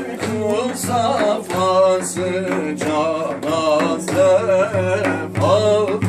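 Men's voices singing a Turkish Sufi ilahi, the melody held and ornamented with wavering turns over a low steady accompaniment.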